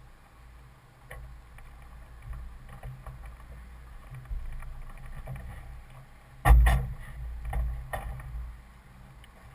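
Knocks and creaks carried through the airframe of a parked BD-4 light plane, engine off, as someone climbs into the cabin, with one loud thump about six and a half seconds in as the cabin door shuts.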